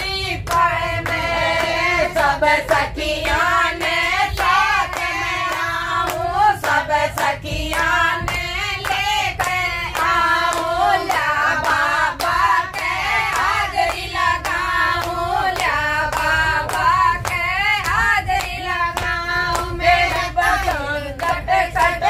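A group singing a devotional song together, with hand clapping keeping a steady beat throughout.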